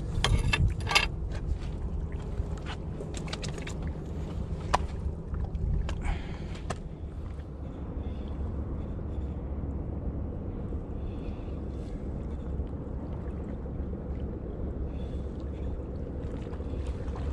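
A low steady rumble of wind on the microphone. In the first several seconds a run of sharp knocks and scrapes comes through as shoes step across breakwater rocks.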